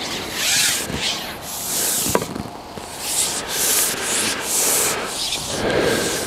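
Rustling, rubbing noise in repeated short bursts, roughly one a second, with a sharp tick about two seconds in.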